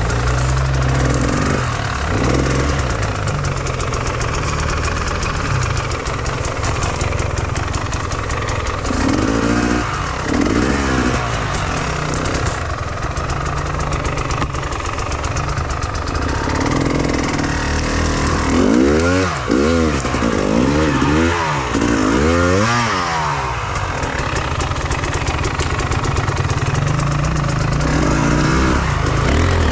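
Enduro motorcycle engine running under load off-road, the revs rising and falling repeatedly, with quick bursts of throttle about a third of the way in, in clusters in the second half, and again near the end.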